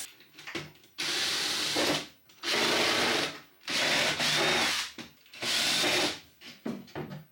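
Power drill run in four bursts of about a second each, with small knocks between them, used to take a piece off a bench.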